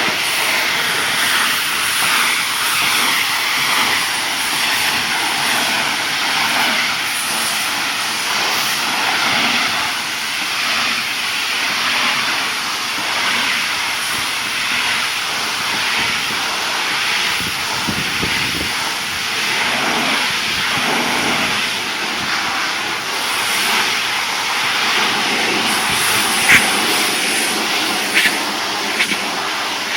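Pressure washer spraying water onto a wooden deck: a loud, steady hiss of the water jet, with a couple of short sharp clicks near the end.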